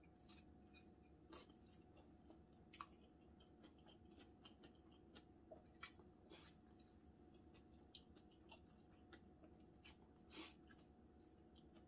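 Faint mouth sounds of a person eating chewy cold naengmyeon noodles: scattered small wet clicks of chewing and slurping, with one slightly longer, louder noise about ten and a half seconds in.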